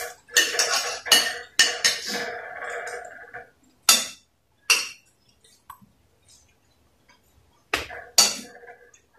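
Spoons and forks scraping and clinking on dinner plates: a busy stretch of scraping and clatter for the first few seconds, then a few separate sharp clinks, two of them close together near the end.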